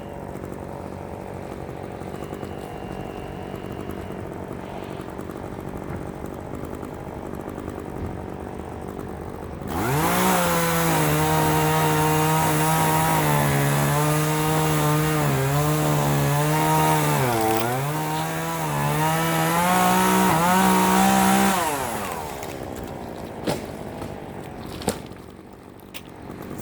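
A chainsaw running at a low level, then opened to full throttle for about twelve seconds, its pitch sagging and recovering as it bogs in a cut through the wood. It then drops back off the throttle, with two sharp clicks near the end.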